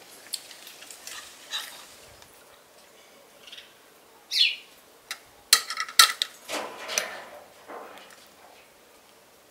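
A metal spoon clinking sharply against glass dishes a few times about halfway through, followed by softer scraping and clatter. Just before the clinks, a bird gives one short chirp that slides downward.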